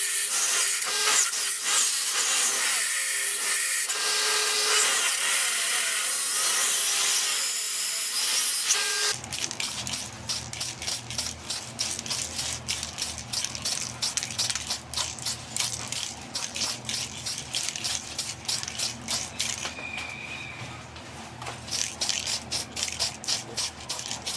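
A tool working wood: a steady abrasive rasp for about nine seconds, then after a sudden change, quick repeated scraping strokes, several a second, over a low hum.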